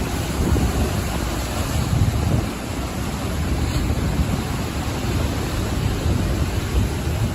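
Ocean surf washing onto the shore in a continuous noisy rush with a low rumble, with wind buffeting the microphone.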